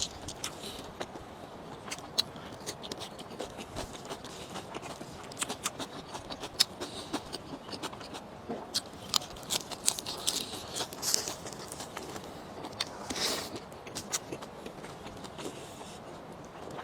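Close-up eating sounds: chewing with many small sharp mouth clicks, growing louder and busier through the middle.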